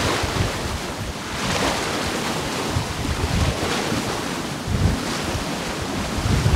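Wind buffeting the microphone over the rush of waves along a sailing yacht's hull, swelling and easing every second or two.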